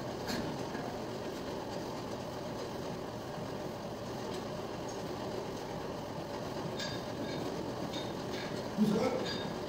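Treadmill running steadily, a continuous rumble from the motor and the moving belt under a walker's steps. A brief louder sound cuts in just before the end.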